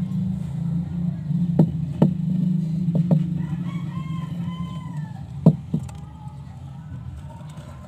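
A rooster crowing in the background about halfway through: one arched call that rises and then falls. Several sharp knocks and taps come close by, two of them near the start and two more later.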